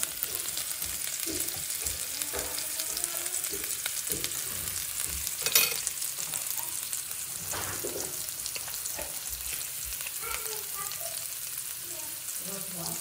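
Butter sizzling steadily around a beef steak searing in a grill pan, with one sharp click about halfway through.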